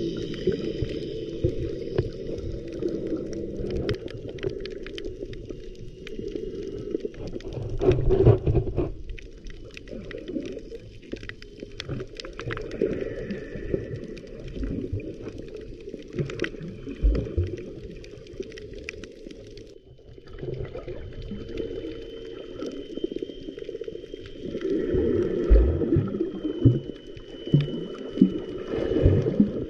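Muffled underwater sound from a submerged camera while snorkeling: low, shifting water movement and gurgling with scattered sharp clicks, swelling louder twice.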